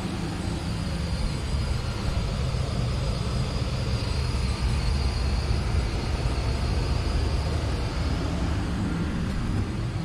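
Steady low rumble and airy hiss of a running furnace blower, with a faint high whine above it.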